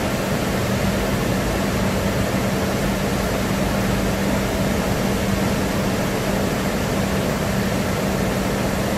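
Flood-swollen stream rushing through a rocky gap below a waterfall: a steady, even rush of water with a steady low hum under it.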